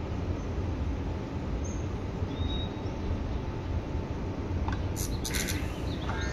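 Seibu 6000 series electric train heard from inside the car: a steady low rumble from the running gear. A short hiss comes about five seconds in, and a faint whine begins just before the end, as the Hitachi GTO inverter's tones start up.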